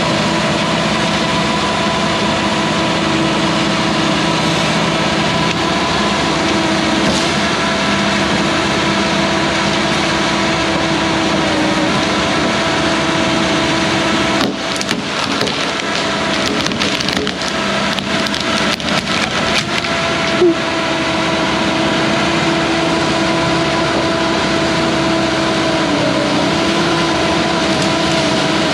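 Hyundai HX210AL excavator engine running steadily. About halfway through, a tree breaks with a run of sharp cracks and splintering lasting several seconds, ending in one louder crack.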